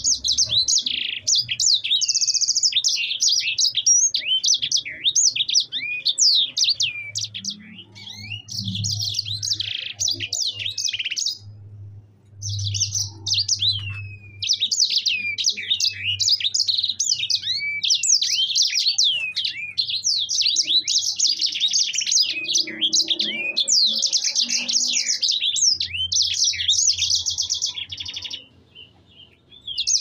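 A caged sanger finch singing a long, fast rolling song of high rapid trills and quick sweeping whistles. It pauses briefly about eleven seconds in and stops shortly before the end.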